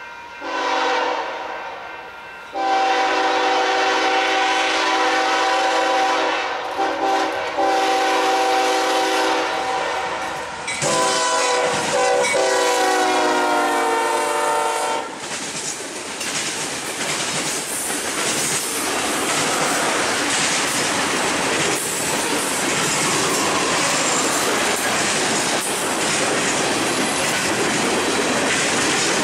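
Union Pacific freight train's diesel locomotive sounding its multi-tone air horn in three blasts, a short one, a long one and a third whose pitch drops as the locomotive passes close by. Then the freight cars roll past with a steady rumble and wheel clatter on the rails.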